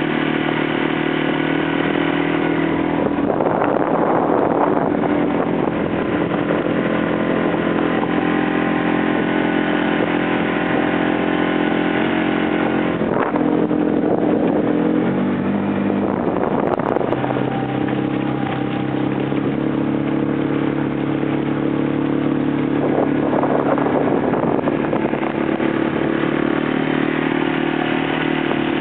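Suzuki 6 hp outboard motor running steadily under way, pushing the boat along; its pitch dips briefly a little past halfway and then comes back up. A few brief surges of rushing noise come and go over the engine.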